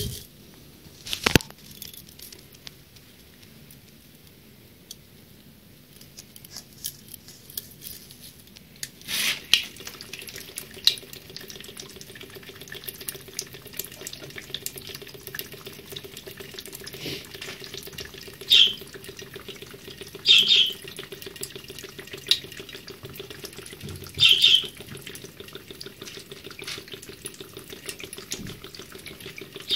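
Water running steadily into a ceramic bathroom sink, starting about nine seconds in, with three short sharp splashes or plastic knocks as a plastic bottle is handled in the stream. A sharp click comes about a second in.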